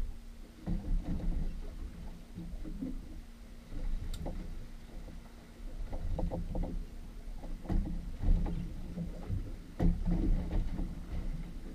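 Water slapping and lapping against the hull of a boat drifting at sea, in irregular low thumps and surges, over a faint steady hum. There is a single sharp click about four seconds in.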